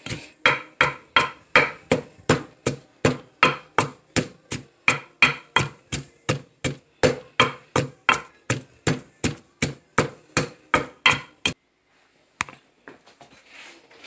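Wooden pestle pounding Thai chili peppers and garlic in a deep clay mortar, crushing them for a som tum dressing: steady strikes about three a second that stop about eleven seconds in, with one last strike shortly after.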